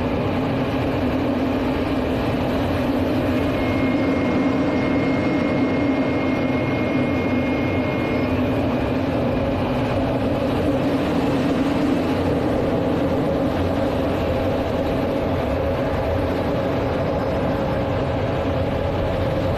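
Steady in-cockpit noise of a Soko J-22 Orao jet in flight, heard inside the canopy: the steady hum of its twin Viper turbojets mixed with rushing airflow. A faint high whistle sits on top from about four to eight seconds in.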